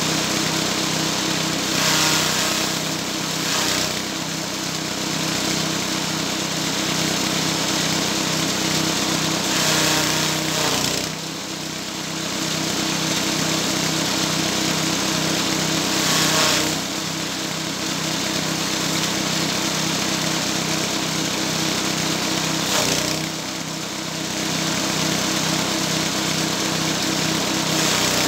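Chaff cutter (grass chopper) driven by a small engine, running steadily, with several brief bursts of chopping noise as handfuls of dry rice straw are fed through the blades.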